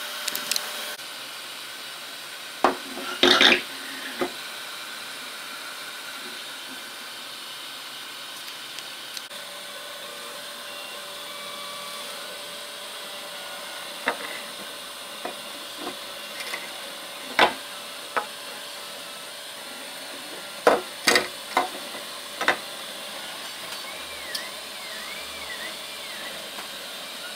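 Hard 3D-printed plastic parts being handled and set down on a wooden desk: irregular sharp knocks and clacks over a faint steady background noise.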